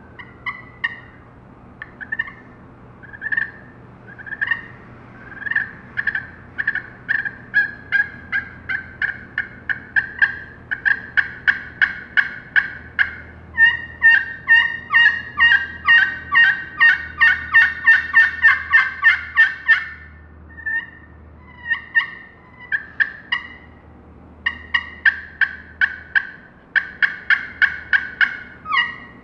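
Aluminium-surfaced turkey pot call with a glass soundboard in a poplar pot, played with a wooden striker to make hen turkey yelps. Single spaced-out yelps at first, speeding up into a fast run of notes in the middle, a short break about two-thirds through, then more series of yelps.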